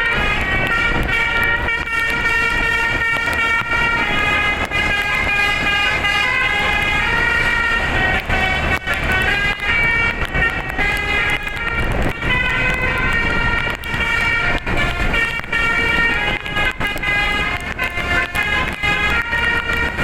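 Bus telolet horn, a set of multi-trumpet air horns driven by a DAV tone module, playing a long melody of loud high notes that step up and down in pitch, with a few short breaks. A low steady rumble runs underneath.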